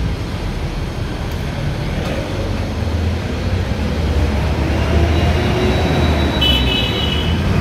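Road traffic noise on a busy city road: a steady low rumble of passing cars and motorbikes, with a brief high-pitched tone near the end.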